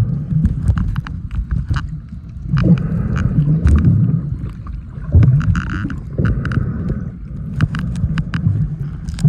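Wind rumbling and buffeting on the microphone, with sea water splashing and gurgling and frequent short crackles.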